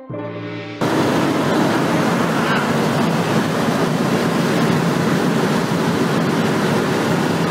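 Aircraft engines droning as a loud, steady roar, which comes in suddenly about a second in after a brief snatch of music and cuts off abruptly at the end.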